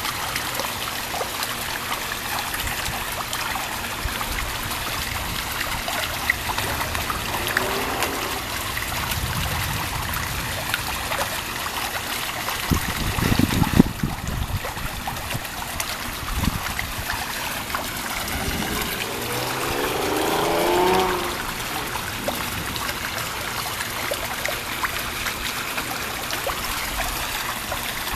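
Steady rain falling and running off during a thunderstorm, with low rumbles of thunder in the middle, loudest about 13 to 14 seconds in. Near the end a short pitched sound swells and then cuts off.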